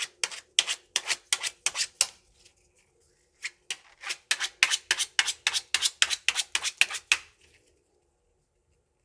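Hwatu cards snapping sharply against each other in quick rhythmic runs, about five or six snaps a second, as the deck is worked by hand. The snaps break off for a moment about two seconds in, start again, and stop about seven seconds in.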